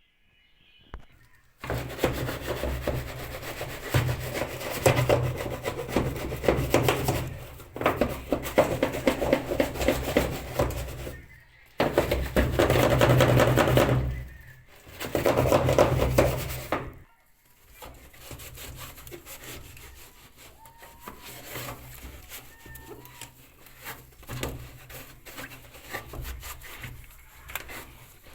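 Hand scrubbing of a washing machine part being cleaned: loud rubbing in bouts of a few seconds with short breaks, then softer, lighter rubbing over roughly the last ten seconds.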